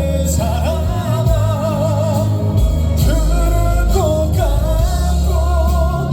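Live pop-trot ballad: a sung melody with vibrato over band backing with a heavy bass.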